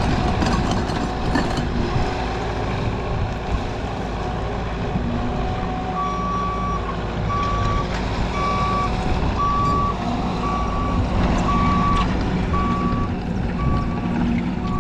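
Heavy machinery's diesel engine running, with a reversing alarm starting about six seconds in and beeping steadily about once a second as a machine backs up.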